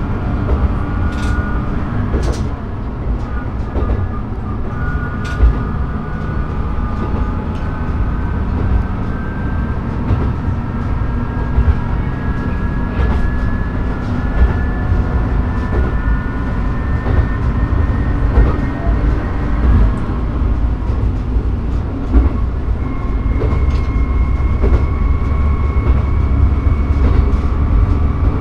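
Diesel railcar running along the line, heard from inside the front of the car. A steady engine and wheel rumble carries whine tones that slowly rise in pitch, with occasional sharp clicks as the wheels cross rail joints.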